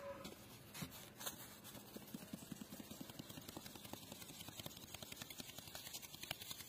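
Flour being sifted through a wooden-rimmed sieve shaken in an enamel basin: a quick run of small taps and rustles, with a couple of louder knocks in the first second and a half.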